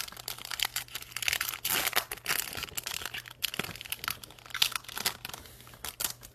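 Crinkly foil wrapper of a trading-card pack being handled, crackling densely for a couple of seconds about a second in, then easing off into lighter rustling.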